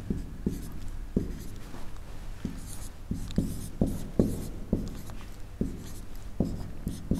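Marker pen drawing on a whiteboard: irregular soft taps as the tip touches down for each small stroke, roughly two a second, with faint scratchy strokes between them.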